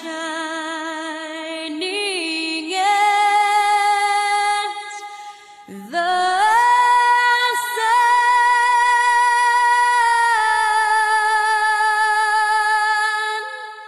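A solo female voice singing a slow song in long held notes with vibrato, sliding between pitches, with little or no accompaniment. There is a short break about five seconds in.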